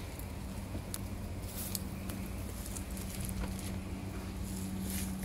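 Octopus and shrimp sizzling on a hot grill mat, with scattered small crackles and pops. A steady low hum runs underneath.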